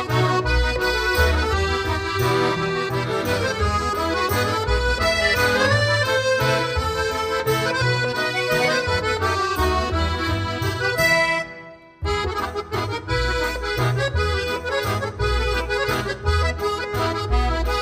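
Background music: an instrumental tune with sustained melody notes over a steady bass beat. It fades out about eleven and a half seconds in and starts again half a second later.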